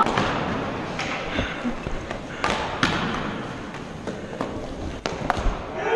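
Scattered sharp knocks of floor hockey sticks and puck striking a hard gym floor, about eight irregular hits, echoing in the gymnasium.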